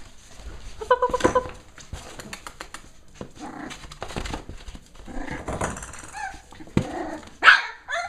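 Six-week-old Cavalier King Charles Spaniel puppies yapping and whining in a series of short, high calls, the loudest near the end, with scattered small clicks and knocks between them.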